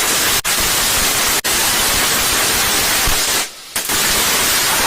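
Firework spewing sparks indoors with a loud, steady hiss. The hiss drops out for an instant twice and cuts out briefly about three and a half seconds in before it resumes.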